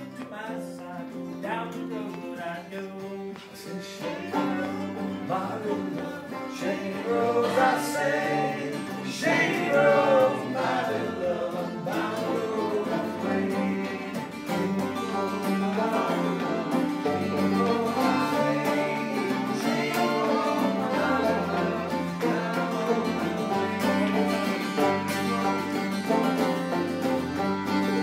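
Live acoustic folk-style string band playing a lively tune: strummed acoustic guitars, electric guitar and a fiddle, with other plucked strings. It grows louder about four seconds in.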